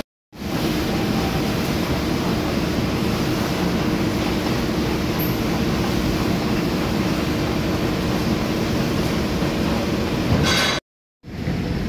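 Milling machine running with a boring bar cutting the steel bore of a forklift steering axle housing: a steady machine drone with cutting noise. It drops out briefly near the start and again about a second before the end.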